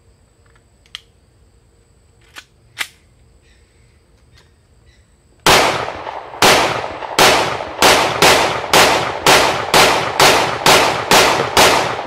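Smith & Wesson SD40 VE .40 S&W semi-automatic pistol fired about thirteen times in a row, the shots coming faster as the string goes on, from about one a second to about two a second. A few light handling clicks come first, before the firing starts about five seconds in.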